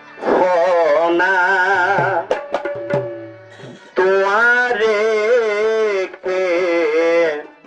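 A man singing a Bengali folk song into a microphone with a wavering, vibrato-laden voice in two long held phrases, accompanied by drums. A few sharp drum strokes fill the gap between the phrases.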